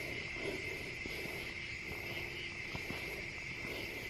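Night insects chirring in a steady, unbroken chorus.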